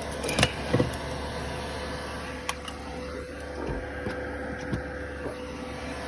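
Chinese 2 kW 12 V diesel air heater running, its blower giving a steady hum with a faint steady tone as it blows hot air into the van. A few light knocks sound in the first second and one more about two and a half seconds in.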